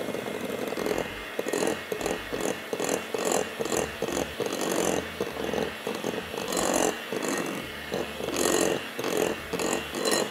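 Anex hand-held electric mixer running, its beaters working through stiff, floury cookie dough in a glass bowl. The sound surges and scrapes unevenly, about twice a second, as the beaters are moved around the bowl.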